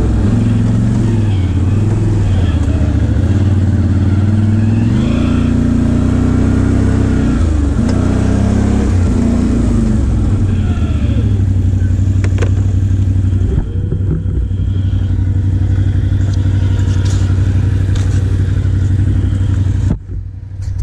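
Can-Am Outlander XMR 570's Rotax V-twin engine being ridden, revving up and down with the throttle. It settles to a steadier, lower note about two-thirds of the way in.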